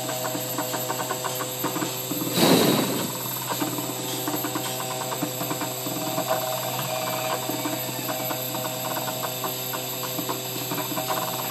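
CNC 3D carving machine running: a steady machine hum with rapid small clicks, and one louder rush of noise about two and a half seconds in.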